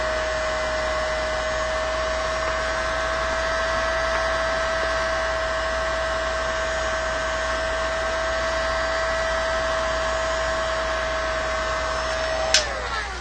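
A DeWalt D26950 electric heat gun running steadily on a low setting: an even rush of blown air under a steady fan whine. Near the end it clicks off and the whine falls away as the fan spins down.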